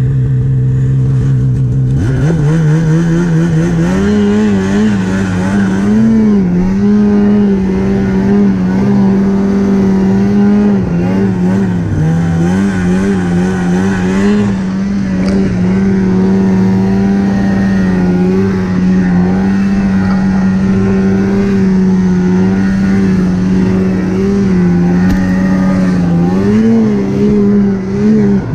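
Snowmobile engine running under the rider. About two seconds in the throttle opens and the pitch climbs quickly, then it holds a steady cruising note with small rises and dips as the throttle eases and opens.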